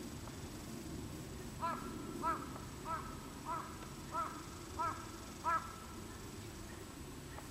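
A crow cawing seven times in an even series, about a call every 0.6 seconds. A small bird is on alert against it.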